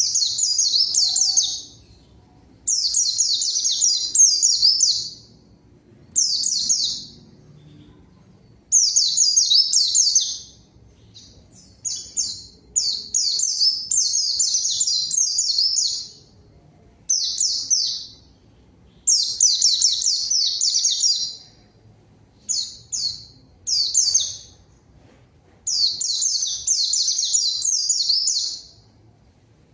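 A white-eye (pleci) in full song: bursts of rapid, high, twittering phrases, each lasting about one to two seconds, repeated about a dozen times with short pauses between them.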